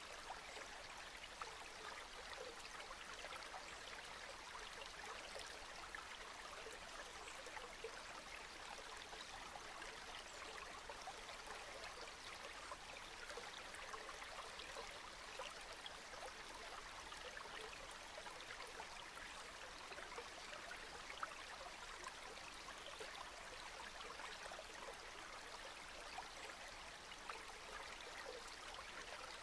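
Steady rain falling: a dense, even patter of fine drops without a break, with the odd slightly louder drop now and then.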